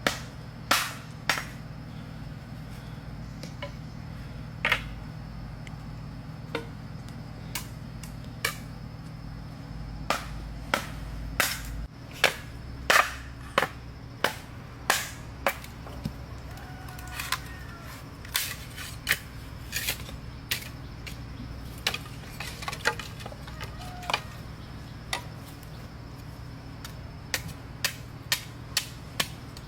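Repeated sharp knocks of hand-tool blows on wood, irregular, roughly one or two a second and sometimes in quick pairs, over a steady low hum.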